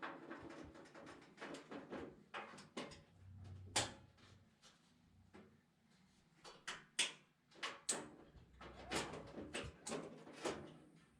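Irregular knocks, clicks and short scrapes of sheet-metal body parts being handled and test-fitted, with the sharpest knocks about four seconds and seven seconds in.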